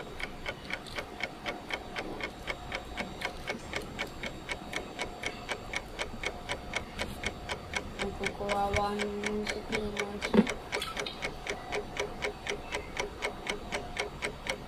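Steady rapid ticking, about four ticks a second, over a faint steady hum, with a single sharp knock about ten seconds in.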